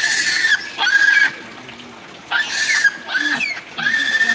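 Infant Japanese macaque crying: five shrill, high calls of about half a second each, in two groups of two and three with a short pause between.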